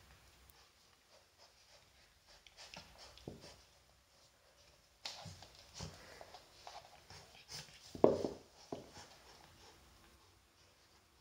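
Swiss white shepherd puppy chewing and tugging at a knotted cotton rope toy: scratchy rustling and the rope scraping on a wooden floor, busier after about five seconds, with one sharp louder knock about eight seconds in.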